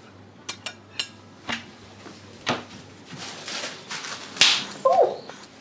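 Crockery and cutlery clinking as a dishwasher rack is loaded: a few sharp separate clinks, then a longer rattling clatter about three seconds in.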